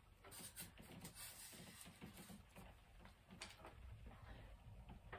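Near silence, with faint scattered rustles and light taps as a decorated mannequin head is handled and set in place.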